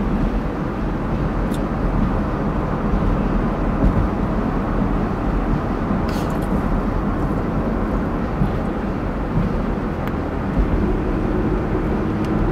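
Steady low road and engine rumble of a car driving at night, heard inside the cabin, with a couple of faint ticks.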